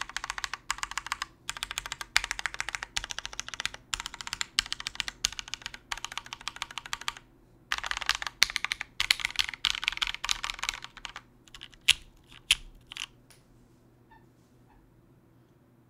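Mechanical keyboard with Cherry MX Black linear switches (lubed with 205g0), a full aluminium plate and GMK keycaps, keys spammed in fast bursts of clicks. There is a short pause about seven seconds in. Near the end come a few single, louder keystrokes, then the typing stops.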